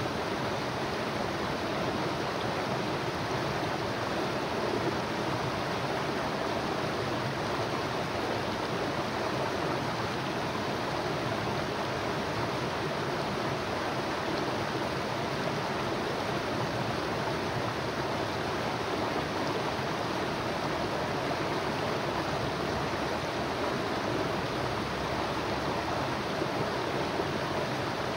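River water flowing, a steady, even noise that does not change.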